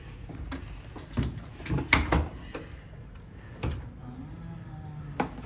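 Hotel room door being unlocked and opened: a scattering of short clicks and knocks from the lock and handle.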